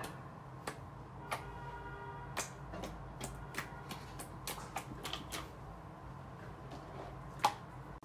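Clear amber slime being poked, pressed flat and squeezed by hand, giving irregular small clicks and pops from the air trapped in it. The loudest pop comes near the end.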